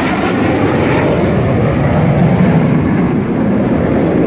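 Dassault Rafale fighter jet passing low overhead, the loud noise of its twin turbofan engines. The high hiss fades as it goes by, leaving a deep rumble.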